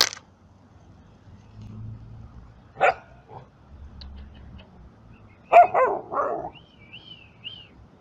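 Mongrel yard dogs barking: one bark about three seconds in, then a quick run of three barks just before six seconds.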